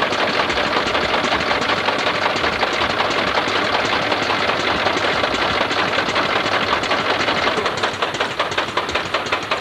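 Engine running steadily with a fast, even knock, which grows more distinct near the end; it is the engine that supplies the vacuum for a bucket milking machine at a pasture milking stand.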